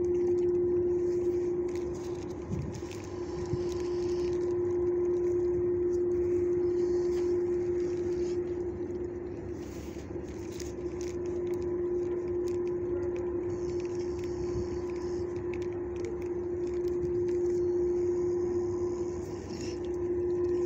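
A steady mechanical hum holding one constant pitch, over low rumbling noise.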